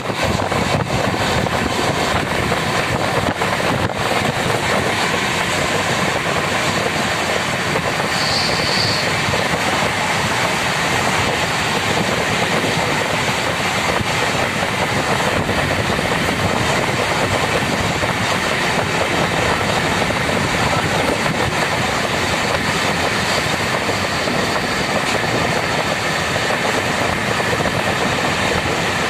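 Steady rushing noise of a moving vehicle, heard from on board while travelling, with no breaks or changes.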